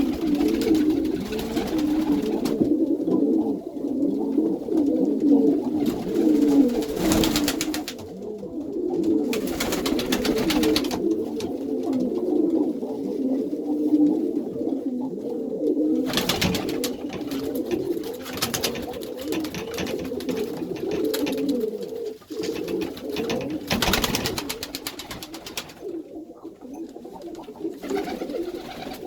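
A loft full of Iranian pigeons cooing continuously, many birds overlapping into a steady low chorus. Several bursts of noise lasting a second or two break in at intervals.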